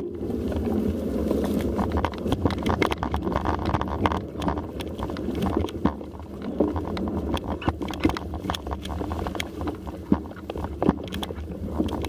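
Mountain bike moving over a muddy singletrack: a steady rumble of tyres and movement noise with frequent knocks and rattles.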